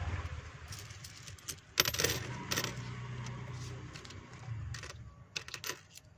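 Coins clinking as they are handled and set down on a glass-topped shop counter while change is counted out: a few sharp clinks about two seconds in, then a quicker run of them near the end.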